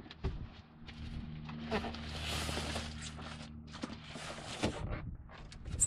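Rustling and scraping of packaging as a cardboard TV box is slid off the styrofoam end caps and plastic-wrapped TV, in two stretches of rustle with a few light knocks between.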